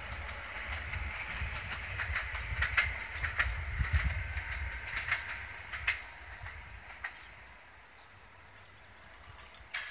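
High Speed Train with Class 43 diesel power cars pulling away: a low rumble with wheels clicking over the rails, fading off after about six seconds as the train recedes.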